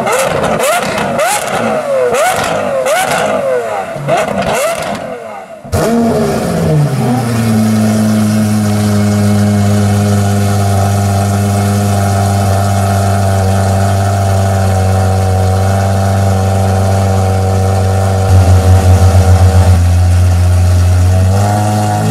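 Lamborghini Aventador SVJ's V12 through a straight-piped exhaust, revved hard in quick repeated blips with crackling between them. It then breaks off abruptly, and the engine drops from a flare into a steady, loud idle, with a brief rapid pulsing shortly before the end and a small rev at the close.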